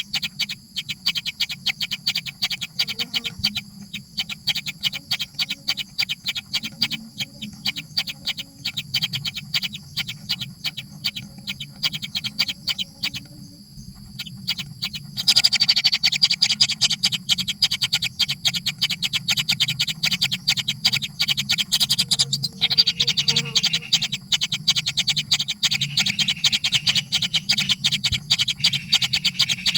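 Bird chicks begging for food: a rapid, continuous string of short high calls, which grows louder about halfway through, over a steady low hum.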